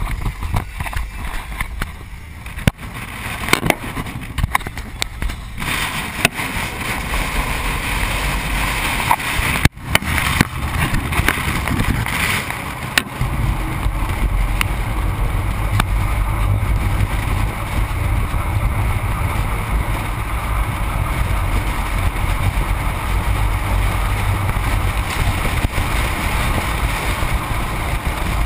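A few seconds of knocks and scraping as the camera is handled and mounted, then a steady low rumble of wind rush and tyre/road noise from a camera fixed low on the outside of a moving truck beside its rear wheel.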